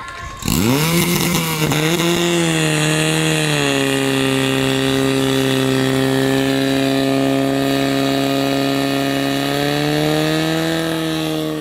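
Portable fire-fighting pump's engine revved hard to full throttle, pumping water into the attack hoses. It comes up sharply about half a second in, its pitch sags a little and settles a few seconds later, then holds steady and rises slightly near the end.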